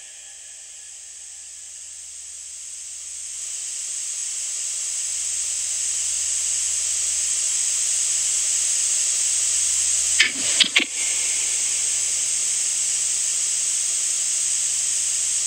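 Steady static hiss that swells over the first few seconds and then holds even, with a brief crackle about ten seconds in.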